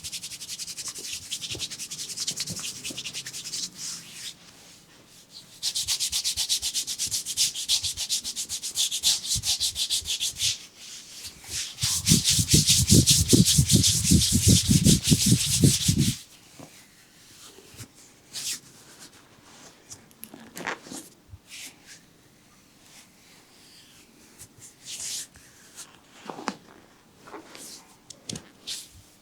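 Hands rubbing briskly over oiled skin in a hot-oil leg and foot massage, in three bouts of quick back-and-forth strokes. The third bout, about twelve seconds in, is the loudest and has a deeper beat under the rubbing. After it come only soft, scattered rubs and touches.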